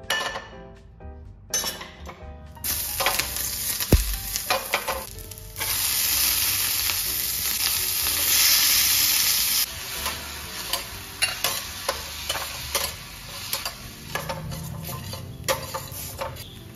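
Sliced mushrooms and masala frying in oil in a steel pan, sizzling, with a metal spatula scraping and clattering against the pan as it stirs. One sharp knock comes about four seconds in; the sizzle is loudest for about four seconds in the middle, as more mushrooms go in, then stops abruptly and drops to a quieter sizzle under the stirring.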